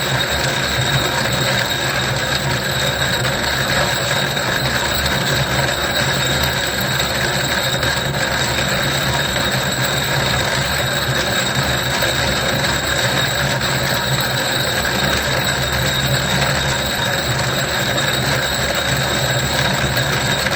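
Stone sphere grinding machine running, a conglomerate sphere being rough-ground against its grinding cup: a steady grinding rasp over a low motor hum, with a thin high whine.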